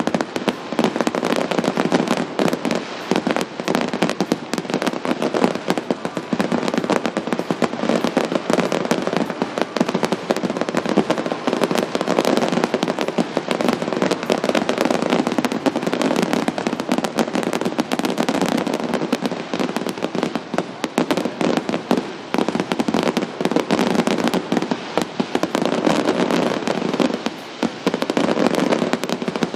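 Fireworks display going off in a dense, unbroken barrage: bangs and crackling many times a second.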